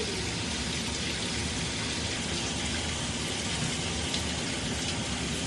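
Steady hissing background noise with a few faint soft ticks.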